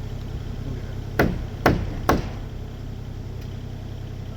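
Three heavy blows struck on a timber frame beam, about half a second apart, knocking a tight joint home. Under them, a mini excavator's engine runs steadily.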